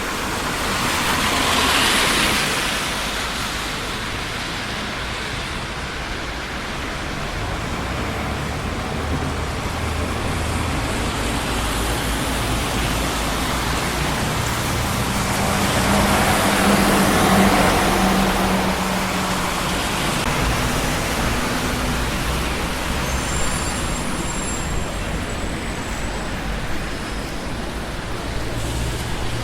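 Steady traffic on a busy city street, cars passing continuously. One vehicle swells past about two seconds in, and a louder one with a low engine hum goes by around the middle.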